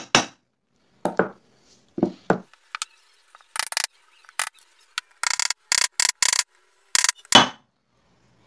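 Hammer blows driving a new ball bearing into a motorcycle engine's aluminium crankcase, struck through an old bearing used as a drift: a series of short, irregular knocks, several coming in quick runs.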